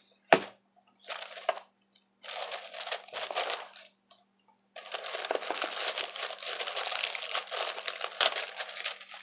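Tissue paper rustling and crinkling as it is pulled back inside a gift box, in short bursts at first and then without a break from about halfway through. A single sharp tap sounds just after the start.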